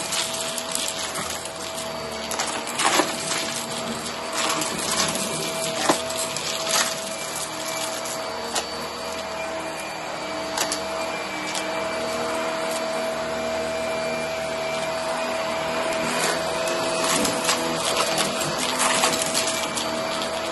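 Hart stick vacuum running on carpet with a steady motor whine over its suction rush, with scattered sharp clicks and crackles as small crunchy debris rattles up the nozzle.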